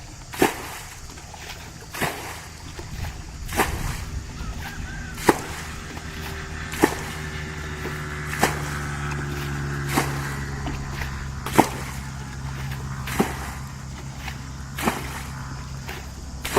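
Sharp slaps or knocks repeating at an even pace, about one every second and a half. A steady motor drone swells in a few seconds in and fades out near the end.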